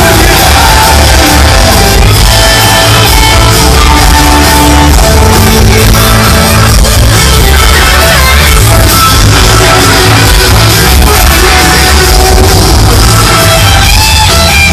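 Live rock band playing at stadium volume: electric guitar lead lines over drums and bass, with crowd yells mixed in, picked up near full scale through a small camera's microphone.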